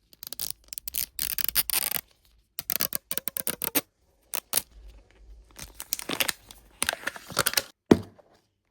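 Small plastic toy packaging being crinkled and torn open by hand in crackly bursts, with a sharp click near the end.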